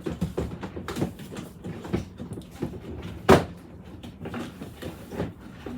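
Drawers being handled and pushed into a drawer unit: a series of knocks and scrapes, with one loud knock about three seconds in.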